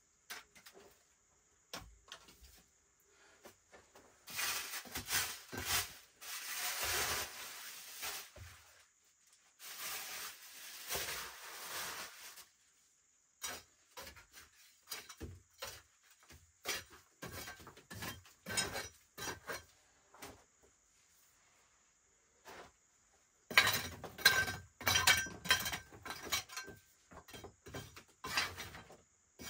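Hands scraping at dry earth and knocking small stones together, in stretches of scraping and many short clicks, busiest near the end.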